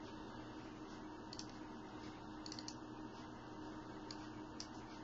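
Faint scattered clicks from computer use, with a quick pair of clicks about two and a half seconds in, over a low steady room hum.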